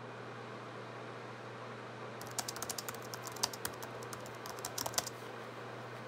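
Typing on a computer keyboard: a quick run of key clicks starting about two seconds in and lasting about three seconds, over a low steady hum.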